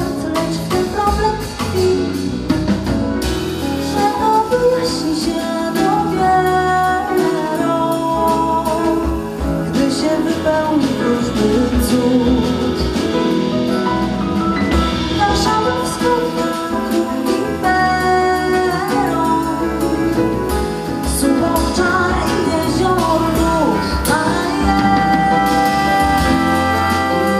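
Live jazz-pop band playing: acoustic guitar, electric bass, drum kit and keyboard, with a woman singing over them.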